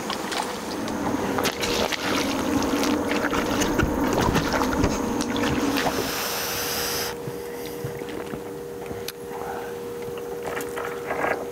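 Water splashing and rustling as a small crucian carp is hooked and drawn in on a long float rod, busiest over the first six seconds and then quieter, with a steady low two-note hum underneath.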